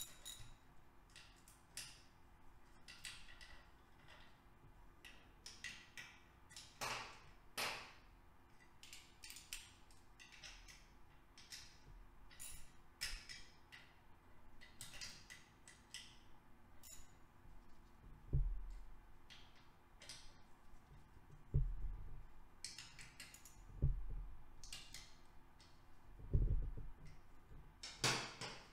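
Socket ratchet on an extension clicking in short irregular runs while the three bolts securing the starter clutch are run into the aluminium engine case. In the second half come four dull low knocks, louder than the clicks.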